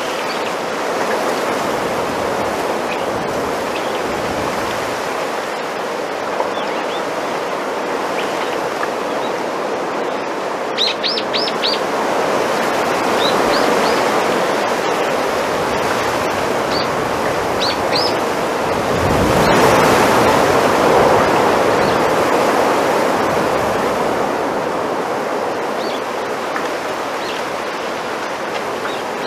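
Wind rushing through a bamboo grove, its leaves rustling in a steady hiss that swells to its loudest about two-thirds of the way through. Small birds give short high chirps near the middle, with a quick run of them about eleven seconds in.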